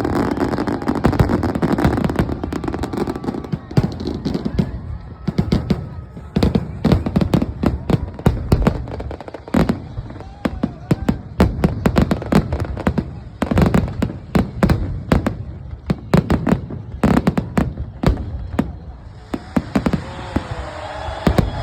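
Fireworks display: many sharp bangs from bursting shells in quick, irregular succession, densest through the middle.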